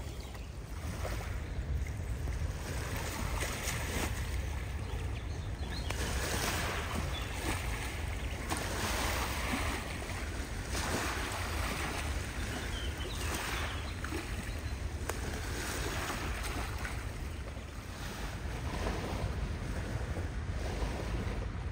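Wind on the microphone: a steady low rumble with gusts that swell and fade every few seconds, over the wash of water at the shore.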